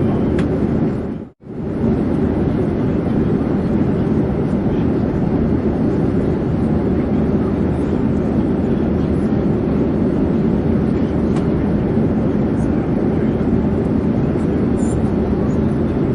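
Steady drone of an airplane in flight, a deep, even rushing noise. About a second in it drops out briefly and comes straight back.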